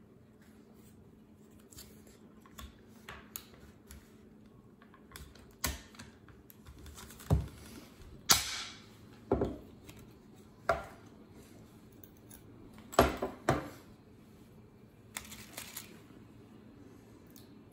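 Hand pop-rivet tool squeezed again and again as it sets rivets joining pouch-cell tabs to a connector board: a series of sharp metallic clicks and snaps, the loudest about eight and thirteen seconds in.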